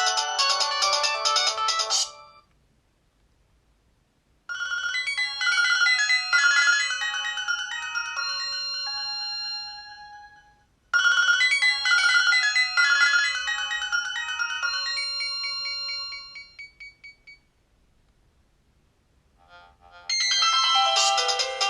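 Nokia 225 mobile phone playing its built-in ringtones. One tune ends about two seconds in. After a short pause a bright melody plays twice, and a different ringtone starts near the end.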